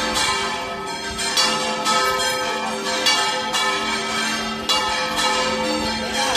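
Church bells ringing a rapid peal for the Corpus Christi procession, struck about twice a second, the tones of several bells overlapping into continuous ringing.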